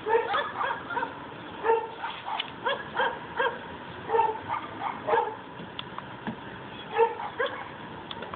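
Dog barking and yipping in short, sharp calls, several a second in uneven runs with brief pauses.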